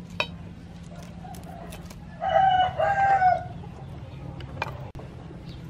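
A rooster crowing once, a call of about a second in a couple of drawn-out segments, over a low steady hum. A sharp click comes just before it, near the start.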